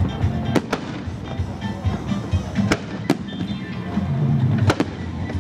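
Aerial fireworks bursting in a series of sharp bangs, about six of them, several in quick pairs, over festival music playing underneath.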